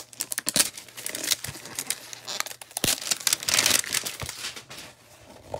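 A cardboard Donruss hanger box of trading cards handled and torn open with gloved hands: crinkling, tearing and rustling of the packaging with many sharp ticks and snaps, busiest about three to four seconds in, then quieter near the end.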